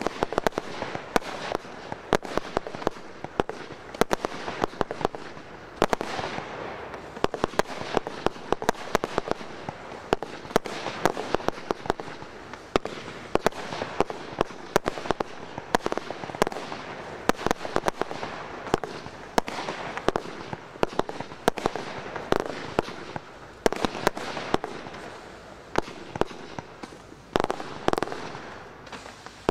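Firework display: a rapid, irregular stream of sharp bangs and pops, several a second, over a continuous crackle.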